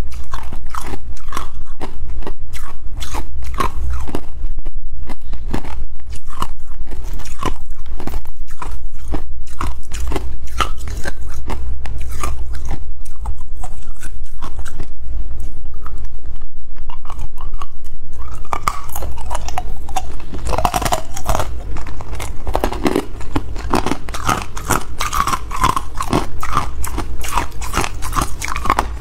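Hard clear ice being bitten and chewed close to the microphone: a dense run of sharp, irregular crunches and cracks, growing fuller and louder over the second half.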